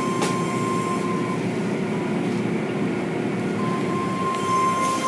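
Automatic car wash machinery running: a steady, dense rumble of the spinning brushes, pumps and water spray. A thin high whine sounds for about the first second and comes back near the end.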